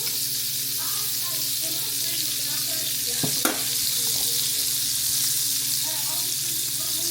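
Eggs frying in a pan with a steady sizzle, and a utensil briefly knocking against the pan a little over three seconds in.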